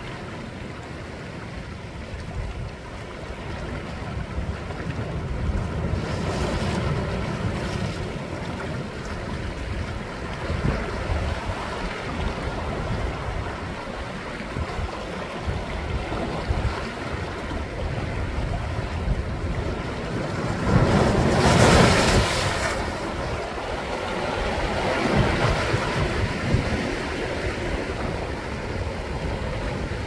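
Sea waves washing in among shore rocks: a continuous surging wash that swells and ebbs, with the biggest surge about two-thirds of the way through.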